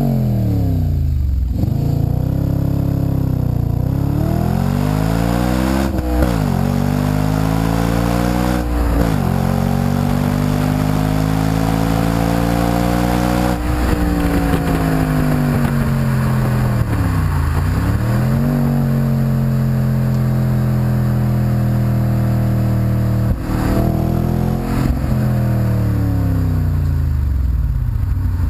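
Audi RS4 Convertible's 4.2-litre V8 heard through its exhaust, right at the tailpipe while driving. It revs up through the gears with the pitch dropping sharply at each upshift, then falls away as the car slows, runs steadily, and picks up again near the end.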